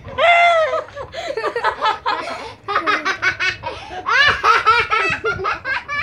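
Young girls laughing hard in rapid, high-pitched peals of giggling and belly laughter.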